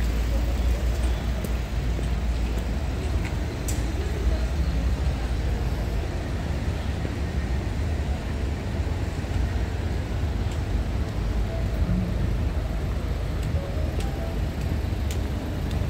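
Steady city street noise: a low rumble of road traffic, with a few faint ticks.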